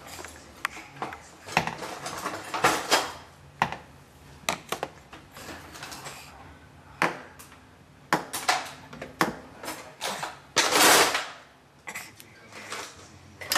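Dishes and cutlery clinking and knocking in an open dishwasher's racks as a baby handles them: a run of separate sharp clicks and clatters, with a longer, louder rattle about eleven seconds in.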